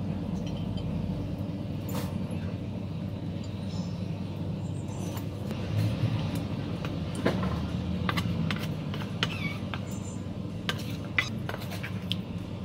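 Serving utensils knocking and scraping on a ceramic plate as rice and fish curry are dished out: scattered sharp clicks, more of them in the second half, over a steady low hum.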